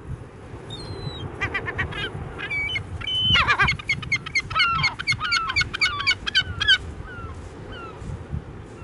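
Gulls calling overhead: a fast run of short, repeated calls, about four a second, lasting some five seconds, with one louder call falling in pitch early in the run. A few fainter calls follow near the end, over a low steady rumble.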